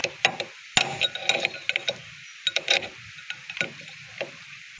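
Irregular light metallic taps and clicks, the loudest just under a second in, from a chisel worked against the sprocket nut of a power tiller's rotary chain drive to tighten it, the chain and sprocket clicking with it.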